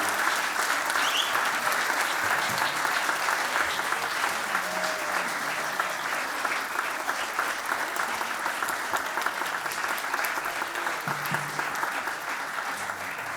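Theatre audience applauding after the final song, a dense steady clapping that slowly fades toward the end.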